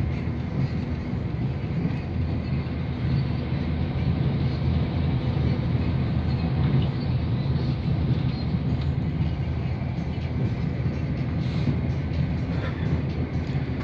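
Steady low rumble of an Irish Rail ICR diesel multiple unit running at speed, heard from inside the carriage: engine and wheels on the rails.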